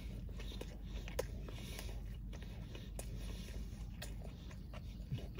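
A person chewing a mouthful of breaded chicken sandwich with their mouth closed: soft, faint mouth sounds with a few small wet clicks, the clearest a little over a second in.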